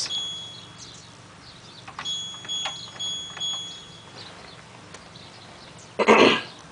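High-pitched electronic beeps from an LG F1222TD washing machine's control panel as program options are selected: one beep stops under a second in, and two more follow from about two seconds in, with a few faint button clicks. A short, loud burst of noise comes near the end.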